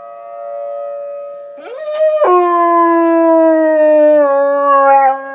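A dog howling one long howl starting about a second and a half in, its pitch rising briefly, then sinking slowly. Under it a tornado siren holds a steady tone.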